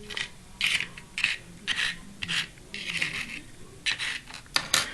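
Small metal parts of a disassembled lock cylinder being handled: a run of short scrapes and rubs, about two a second, with a slightly longer scrape around the middle and a sharper click near the end.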